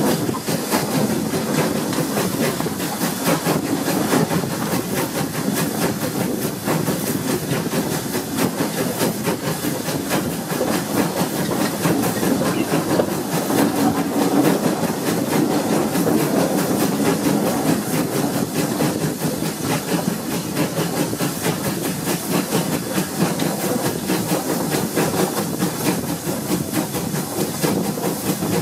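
Steam-hauled train running, heard from an open carriage window: a steady mix of locomotive steam, carriage wheels on the rails and rushing air.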